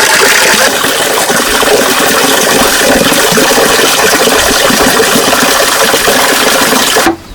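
A loud, steady rushing noise that cuts off suddenly near the end.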